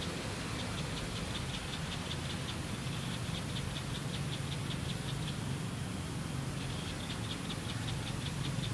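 A high, rapid pulsing call, about six pulses a second, over a steady low hum. The pulsing stops about five seconds in and starts again about a second later.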